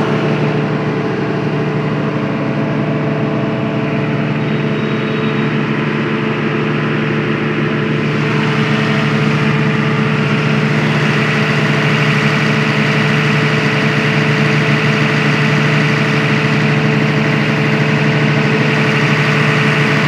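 Fire brigade truck's engine idling steadily.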